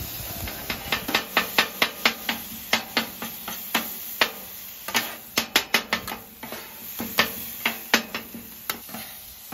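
Metal griddle spatulas chopping shaved beef on the hot steel plate of a Camp Chef flat top griddle: rapid, irregular clacks of blade on steel, a few a second, over the sizzle of the meat frying in its juice.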